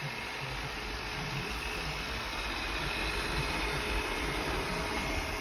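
Thamtu G11 robot vacuum running: the steady whir of its suction fan and brushes, with a faint high whine.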